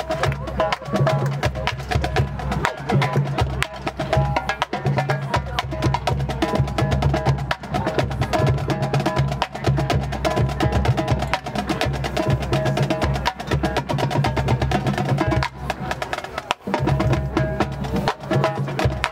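High-school marching band playing its field show: fast, dense percussion strikes from the drums and mallet instruments over held notes from the ensemble.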